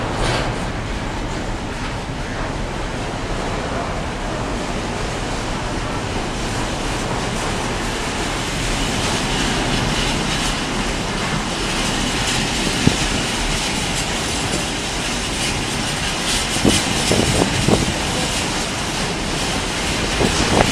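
Container freight train's wagons rolling past at close range, a steady rolling rattle of wheels on rail with a few sharp clacks in the second half.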